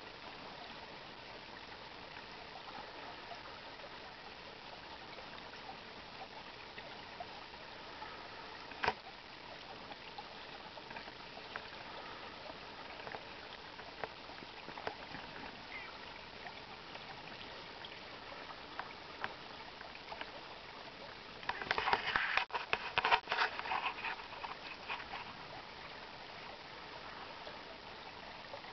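Shallow creek trickling steadily over gravel. There is a single sharp click about a third of the way in. About three quarters of the way through comes a louder burst of splashing and flapping, lasting a few seconds, as two mallard drakes scuffle in the water.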